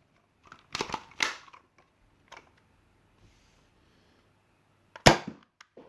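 Nerf Rival Knockout converted with the 3D-printed Platypus kit firing a Mega dart: a single sharp pop about five seconds in, after a few light clicks near the start.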